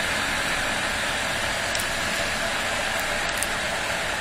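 Steady riding noise from a Honda XR250 single-cylinder trail motorcycle at cruising speed: wind rushing over the bike-mounted camera's microphone together with the engine running.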